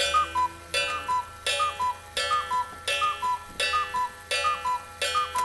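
Cuckoo clock striking the hour: a hammer hits the gong, and then the two bellows-driven whistles sound the two-note "cuckoo", high then low. The pattern repeats about every three-quarters of a second, about eight times.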